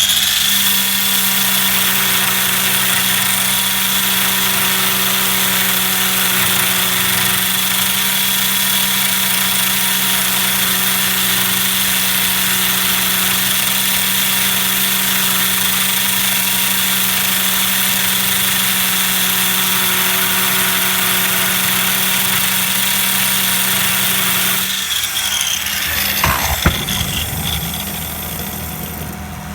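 Electric fan with cut-down blades running at full speed: a loud, steady whir with a constant hum and a high whine. It is switched off about 25 seconds in and winds down over the following seconds.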